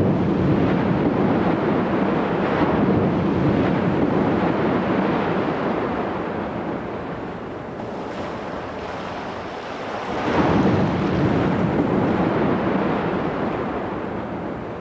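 Man-made waves in a full-scale wave flume breaking and rushing up a dike slope of grass sods as a load test: a surge of churning water easing off over several seconds, then a second surge about ten seconds in.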